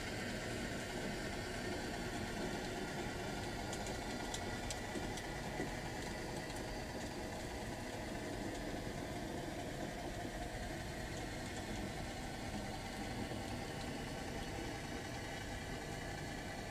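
HO-scale model log train rolling slowly past, giving a steady engine-like hum. A few faint clicks come about four to six seconds in.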